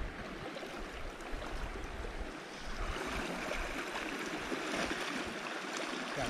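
Shallow river water flowing and rippling: a steady rush that grows a little fuller about halfway through.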